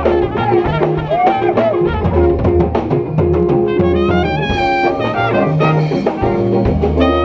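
Live big band playing jazz: saxophones and brass over a drum kit.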